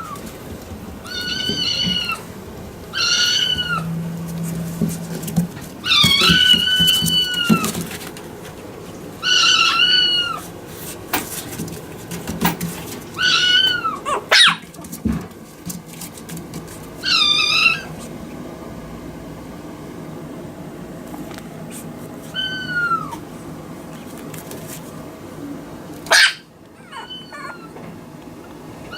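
Maltese puppy whining: high-pitched crying calls repeated every few seconds, mostly short, one drawn out for about two seconds. A sharp knock comes twice, about halfway and near the end.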